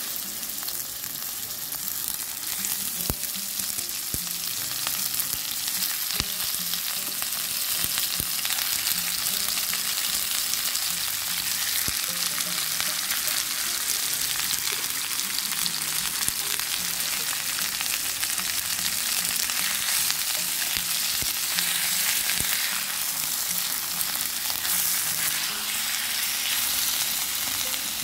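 Strips of contra filé (beef sirloin) frying in hot olive oil in a small frying pan: a steady, dense sizzle with occasional pops.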